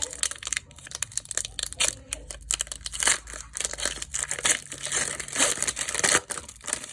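Foil booster pack wrapper crinkling and tearing as it is handled and ripped open, an irregular run of crackles throughout.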